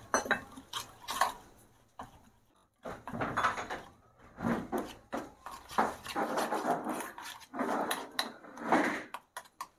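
Metal spoon stirring a thick flour-and-water batter in a stainless steel bowl, working out lumps in uneven strokes, with occasional light scrapes and clicks against the bowl and a couple of brief pauses.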